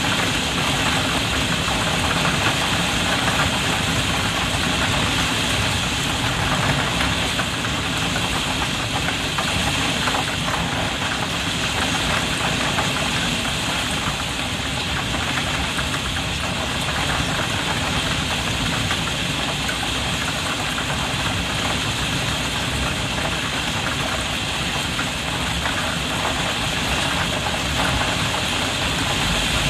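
Heavy rain drumming steadily on a skylight, heard from inside the room below it.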